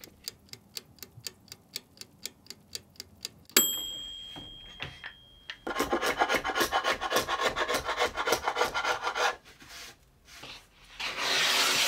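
A small steel blade scraping along a glued-up panel of plywood and MDF strips in quick rhythmic strokes, with a louder rough scrape near the end. Before it comes a quick run of light even clicks, then a sharp metallic clink that rings briefly.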